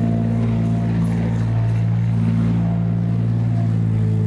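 Combine harvester running steadily while cutting grain, its engine giving an even, unchanging drone with no rise or fall in pitch.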